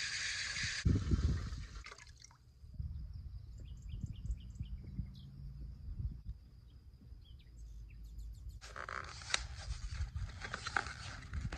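Water from an outdoor hose spigot running into a stainless steel pot, shut off about a second in. Then a bird chirping in short high notes, and near the end crackling and clicking as a foam tray of salt cod is handled, with one sharp click.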